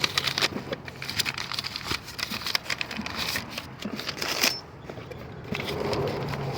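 New brake pads and their metal hardware clips being handled and sorted, with frequent small clicks and clinks and the crinkle of packaging.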